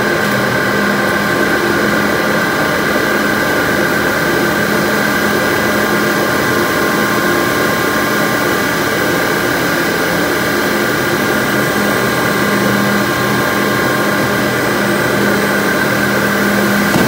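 Steady drone of machinery in a plastic pipe factory, a low hum with a high whine over it.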